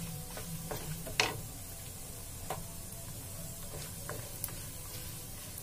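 Wooden spoon stirring chopped cashews, almonds and coconut frying in ghee on a low flame in a non-stick pan. It knocks lightly against the pan about five times, the loudest about a second in.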